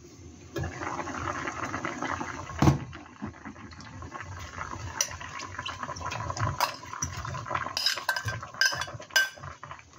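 A pot of doenjang-jjigae bubbling at a rolling boil, with one sharp metallic knock about two and a half seconds in. Toward the end comes a run of clinks, a spoon against a ceramic bowl as chopped zucchini and radish are tipped into the pot.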